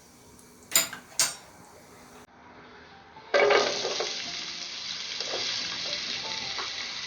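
Two sharp clinks of a utensil on cookware, then, about three seconds in, a sudden loud sizzle as chopped onions drop into hot oil with whole spices. The sizzle settles into steady frying.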